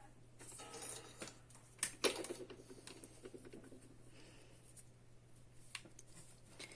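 Quiet handling noise: faint rustling and scratching with a few light clicks and a soft knock about two seconds in, over a steady low hum.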